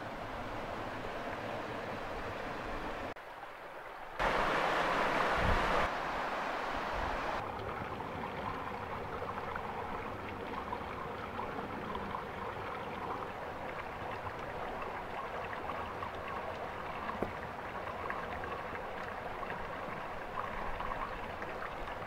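River water flowing and splashing over rocks, a steady rush that grows louder for about two seconds some four seconds in.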